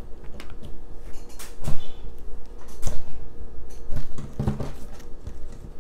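Knocks and taps of small objects and putty being handled on a tabletop: a few irregular sharp knocks, with a quick cluster of them near the end.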